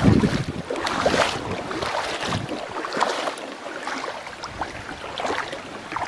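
Shallow water splashing and lapping over rocks, with wind buffeting the microphone.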